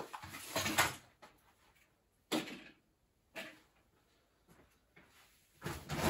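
Handling noises: a vacuum cleaner hose being set down and a shopping bag picked up. These come as about four short bursts of rustling and bumps with quiet gaps between them.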